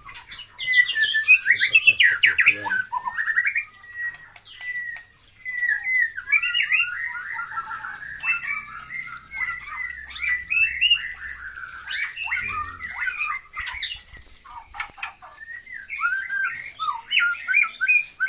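Captive white-rumped shamas (murai batu) singing: rapid, varied whistled and chattering phrases, nearly continuous, with a brief lull about four to five seconds in.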